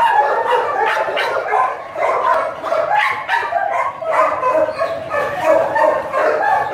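Many kenneled dogs barking and yipping at once, overlapping without a pause.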